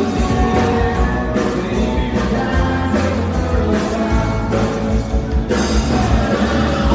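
Live dance band playing a 1960s rock and roll number with a singer, loud through the hall's PA.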